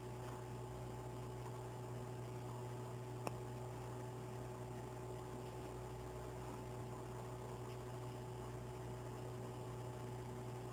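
Steady low electrical hum with a few faint higher tones held under it, and one faint tick about three seconds in.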